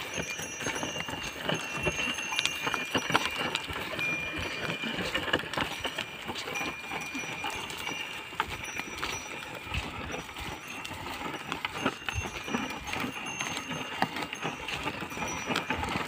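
Bullock team's hooves and a wooden plough scuffing and scraping through dry tilled soil in an uneven patter of short clicks and scrapes. Faint high ringing tones come and go over it.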